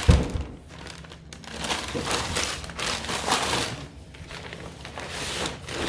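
A low thump right at the start, then bouts of rustling and crinkling as packaging is rummaged through.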